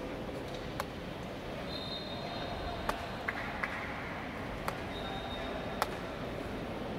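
Crowd murmur in an indoor sports hall during a boxing match, with a few sharp smacks at irregular moments.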